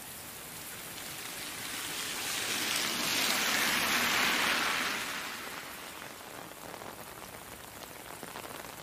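Steady rain falling, with a car passing on the wet road: its tyre hiss swells from about two seconds in, peaks around four seconds and fades away by about six.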